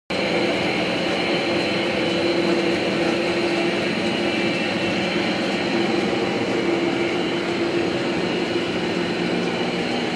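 Grinding-shop machinery running steadily, with belt-driven grinding wheels turning and a continuous mechanical hum and clatter.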